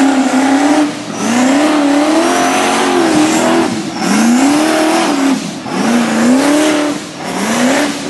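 Rock bouncer buggy's engine revving hard under load on a steep dirt hill climb, in repeated surges that rise in pitch and fall back about every one and a half seconds.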